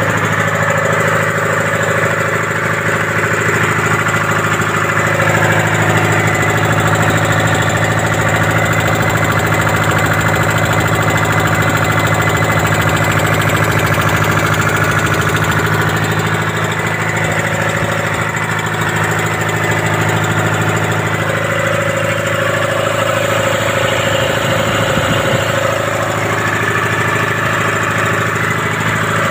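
Detroit Diesel two-stroke diesel engine, freshly repaired, running steadily at a constant speed.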